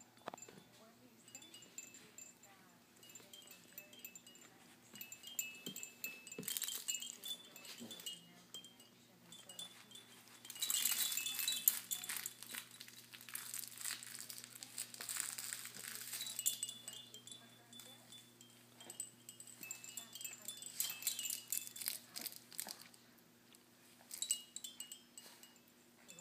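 Hanging toys of a baby's play-gym being batted and grabbed: a crinkly fabric toy crinkling and small chimes and rattles jingling, in bouts, loudest from about ten to sixteen seconds in.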